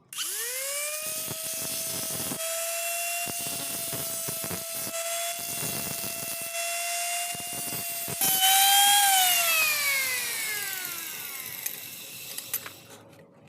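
Small electric power tool motor spinning up to a steady high whine, with patches of grinding noise over it, putting a starting chamfer on the end of a bolt so an 8 × 1.25 die can bite. About eight seconds in it gets louder, then it is switched off and winds down, falling in pitch.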